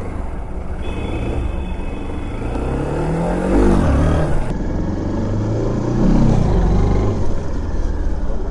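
Honda Unicorn 160's single-cylinder engine revving, its pitch climbing and dropping back a couple of times as the throttle is opened hard for wheelie attempts.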